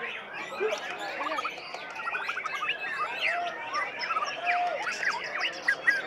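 White-rumped shama singing a rapid, varied song of whistles, chirps and trills, over a dense chorus of many other caged songbirds.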